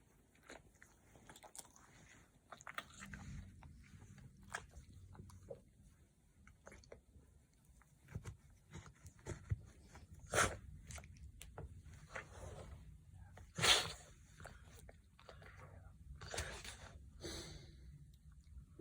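Labrador snoring and smacking its lips: scattered clicks and smacks, with a few louder snoring breaths, the loudest about fourteen seconds in.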